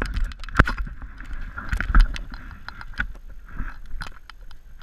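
Scattered knocks and scrapes of a fallen rider and dirt bike on rock and dirt, with sharp knocks about half a second in and about two seconds in.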